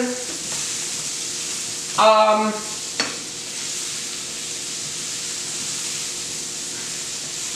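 Mushrooms sizzling in a hot frying pan as they are stirred and turned with a plastic spatula, a steady hiss with a single sharp click about three seconds in.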